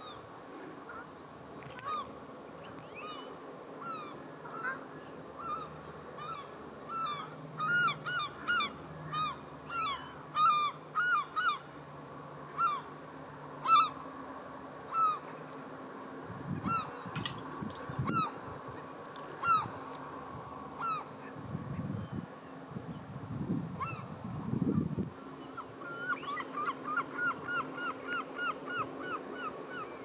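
Geese honking: many short calls, single and overlapping, ending in a quick run of about three calls a second. A few low rumbles come through around the middle.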